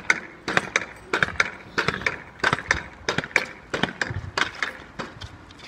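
Two pogo sticks bouncing on hard paving: a quick, uneven run of knocks, about three a second, which thins out near the end.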